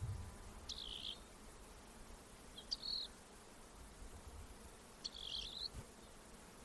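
Rock wren calling: three short, high calls about two seconds apart.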